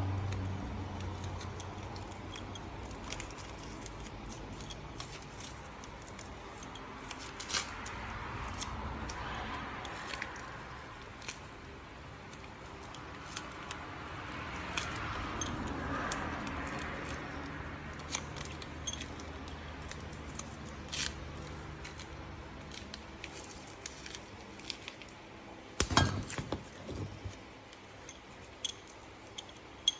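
Small metal parts and tools clinking and clicking as they are handled on the bench during a vise restoration, with a louder clatter near the end. A low hum dies away in the first second or two.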